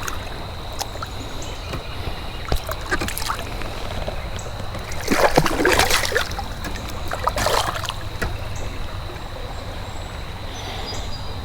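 Creek water splashing and sloshing as a hooked trout is lifted out by hand. The loudest splashes come about five to six seconds in and again near seven and a half seconds, over a steady low rumble.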